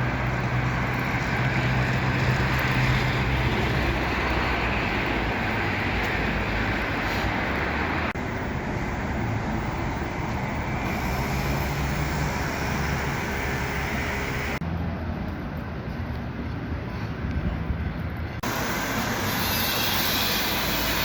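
Steady vehicle and road noise with a low engine hum. The sound changes abruptly in character three or four times.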